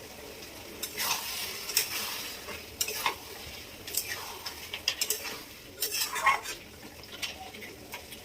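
A spatula scraping and clinking against a cooking pan as a taro-stolon and prawn curry is stirred, with the curry sizzling in the pan between strokes.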